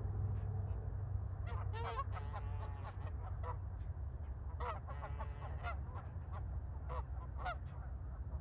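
Canada geese honking in short, repeated calls, scattered irregularly throughout, over a steady low rumble.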